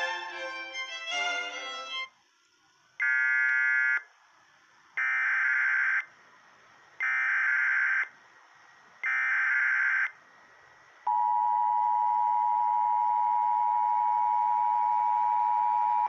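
Emergency Alert System tones for a tornado warning. A couple of seconds of music, then four one-second bursts of buzzing SAME digital header data, a second apart, then the steady two-tone attention signal held for about five seconds, which cuts off suddenly.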